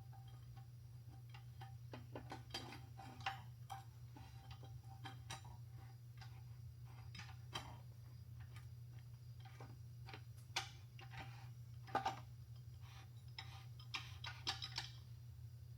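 Light metallic clicks and taps of transmission internals being handled and seated in the case as the planetary ring and bearing go in. They come irregularly, with the loudest knock about twelve seconds in and a quick run of taps near the end, over a steady low hum.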